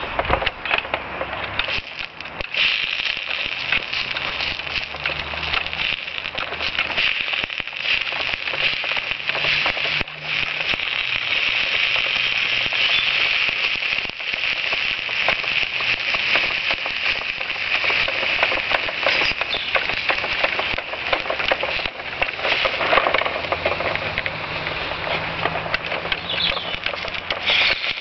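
Small fire crackling steadily as a plastic toy lorry burns, with many irregular pops and a constant high hiss.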